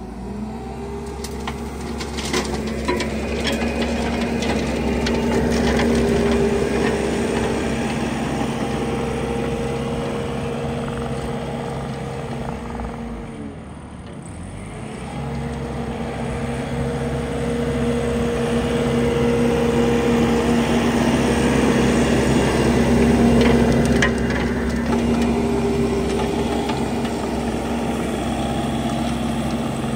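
Skid-steer loader's engine running steadily, driving a hydraulic Coneteks 2.13M soil-milling attachment. The engine note drops briefly about halfway through, then comes back up.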